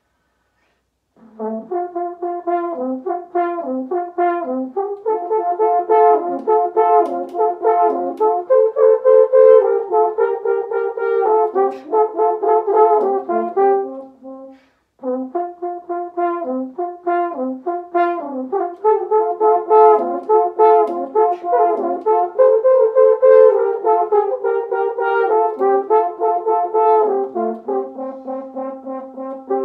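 Two French horns playing a duet study together, many short notes in quick succession. They start about a second in and break off briefly about halfway through before playing on.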